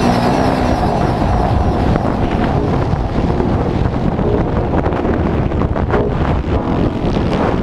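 Kawasaki KX450F motocross bike's four-stroke single-cylinder engine running under throttle, heard from an onboard camera with heavy wind buffeting on the microphone.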